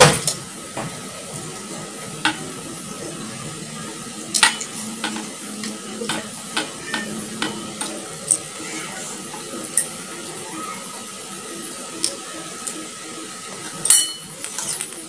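Close-up mukbang eating sounds: wet chewing, sucking and lip smacks from raw shrimp and rice eaten by hand, in many short, irregular clicks. A louder clatter near the end as a spoon scrapes the rice bowl.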